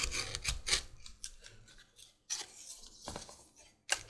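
Leather strap and hand tools being handled on a workbench: scattered light clicks and taps with rubbing between them.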